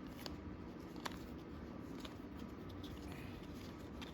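Faint handling noises from trading cards being moved about: a few light clicks and taps, the clearest about a second in, over a low steady hum.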